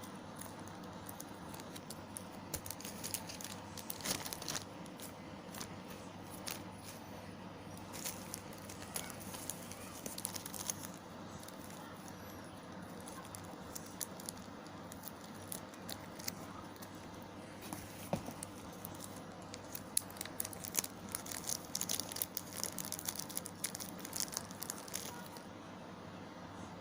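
Plastic packaging crinkling and rustling in irregular bursts of crackles as packs of soft fishing lures are handled and unwrapped, busiest in two spells, with a faint steady hum underneath.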